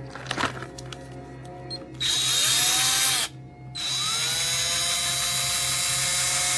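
DEKOPRO 12V cordless drill run with no load, twice. The motor spins up with a rising whine and runs steadily for about a second before stopping. It then spins up again and runs steadily to the end. Small clicks of handling come before the first run.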